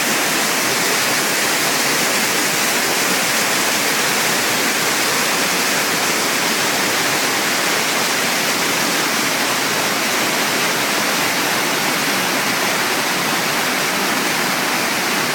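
Shypit waterfall, a Carpathian mountain cascade, with its water rushing in a steady, even roar that never changes in level.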